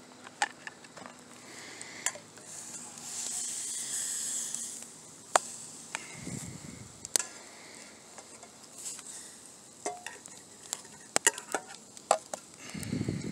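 Fish fillet frying in a stainless steel camp pan over a campfire. A soft sizzle runs throughout and swells to a louder hiss about three to five seconds in, with sharp clicks and scrapes of a metal spatula against the pan as the fish is worked loose and turned.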